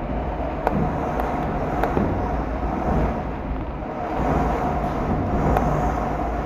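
Heavy downpour with gusting wind buffeting the microphone: a steady rush of rain over a deep wind rumble, with a few sharp ticks of drops striking nearby.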